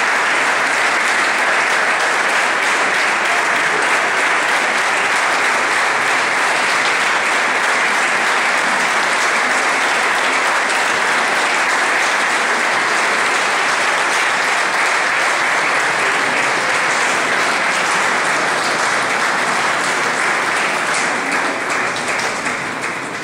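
Audience applauding, a dense steady clapping that begins to fade away near the end.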